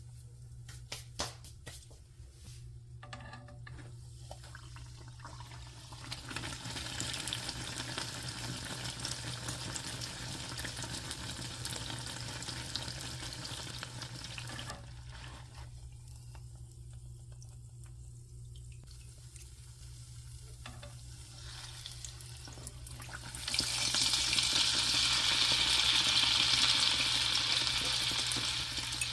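Bread dough sizzling as it fries in hot oil, after a few light clicks at the start, over a low steady hum. The sizzle drops away for a few seconds in the middle, and a louder steady hiss sets in near the end.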